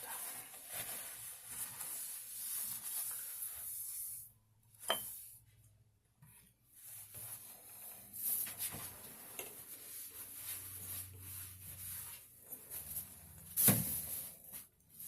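Faint rustling and handling noises with a few sharp knocks, the loudest near the end, as spilled beer is cleaned up from the table.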